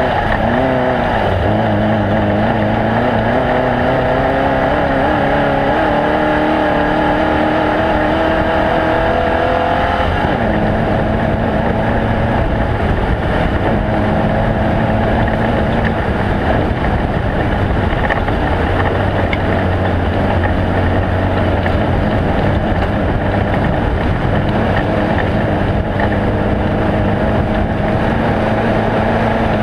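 Off-road race vehicle's engine running hard, its pitch climbing steadily for several seconds, dropping sharply about ten seconds in, then holding fairly steady.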